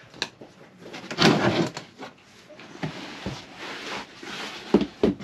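Wooden battens being handled on a plywood box: scattered knocks and taps of wood on wood, with a louder scraping slide about a second in.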